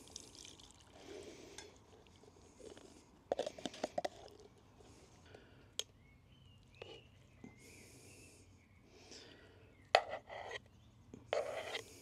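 Light clinks and taps of food and utensils going into a metal bowl, in a few short clusters, with a few bird chirps in between.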